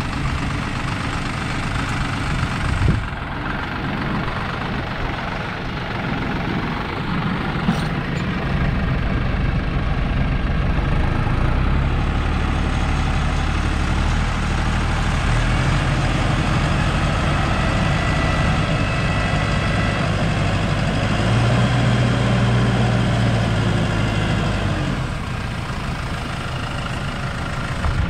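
Farm tractor's diesel engine working hard under load as it pulls a stuck tractor out of a hole, the engine note getting heavier about eight seconds in and easing off near the end.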